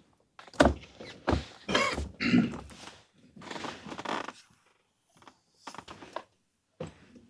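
Microphone handling noise: several thumps and stretches of rustling, loudest in the first three seconds, then a few faint knocks near the end.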